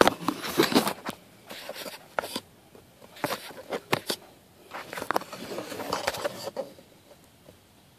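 Camera being handled up close: a run of irregular rubbing, scraping and clicking noises that stops about six and a half seconds in.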